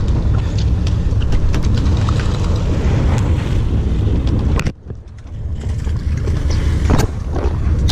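Steady low rumble of a sportfishing boat under way, its engine and the wind on the microphone, with scattered clicks and knocks. The sound drops out sharply for about a second a little past halfway, then returns.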